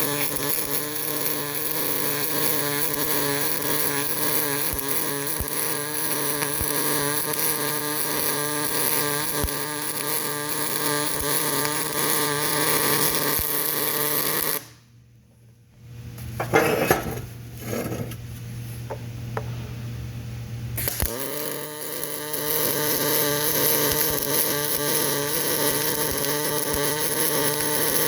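Electric arc welding: the arc runs steadily, stops about halfway through, a few sharp knocks follow, and then the arc starts again and runs on.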